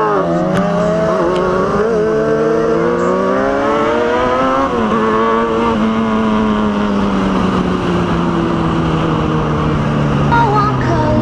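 Motorcycle engine pulling hard with its pitch climbing, a sudden drop about four and a half seconds in as it shifts up a gear, then running on with the pitch slowly sinking.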